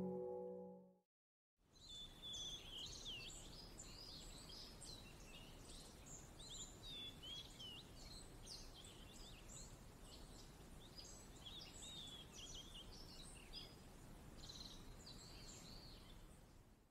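Faint birdsong: many short chirps and twittering calls over a low, steady hiss, after the tail of the music fades out in the first second. It cuts off just before the end.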